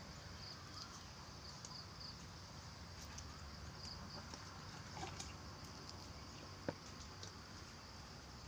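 Faint outdoor rural background: a steady high insect drone with short high chirps scattered through it, and one sharp click about two-thirds of the way in.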